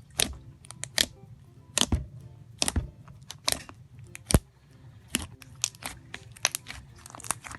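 Freshly borax-activated slime being worked by hand, giving irregular sharp clicks and pops from trapped air, about two a second.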